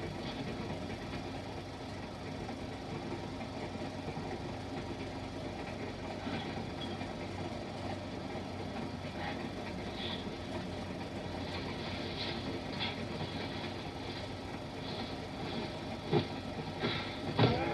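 Steady rumble of a moving passenger train on an old optical film soundtrack, with faint scattered ticks and two sharp knocks near the end.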